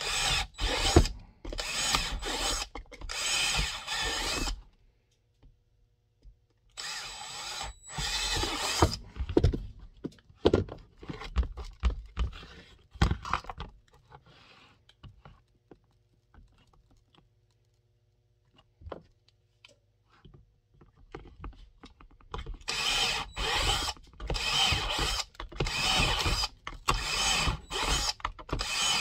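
Power drill with a 1/4-inch bit boring rivet holes through a kydex holster, in bursts. The drill runs at the start and briefly about seven seconds in, with clicks and knocks of handling between. After a quiet stretch it runs again as a series of short bursts from about two-thirds of the way through.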